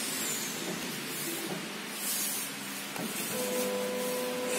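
CNC router machine running with a steady hiss, a steady hum tone coming in about three seconds in.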